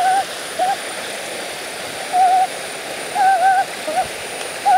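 A bird calling over and over with short, wavering hoots, some single and some run together in pairs, against a steady background hiss.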